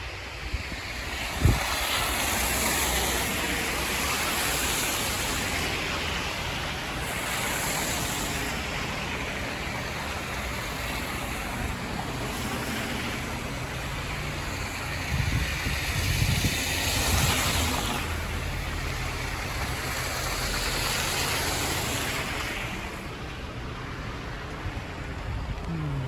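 Blizzard wind gusting against the microphone over city street noise, a steady hiss that swells and fades every few seconds. There is one sharp knock about a second and a half in, and a low rumble a little past the middle.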